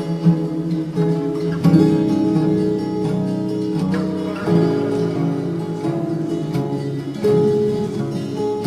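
Slowed-down pop song in an instrumental stretch with no vocals: a run of held chords that change every second or so.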